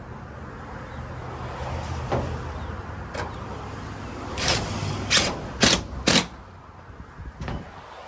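Cordless drill/driver driving a screw through tin roofing: the motor runs steadily for about four seconds, then there are four short loud bursts in quick succession as the screw is run down into the metal, and one more near the end.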